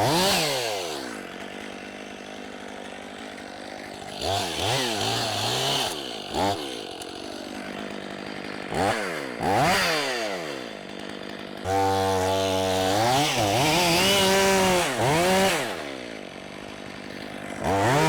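Gas chainsaw repeatedly revving up and dropping back to idle while cutting into a pecan trunk to fell the tree, with the engine pitch sweeping up and down over and over.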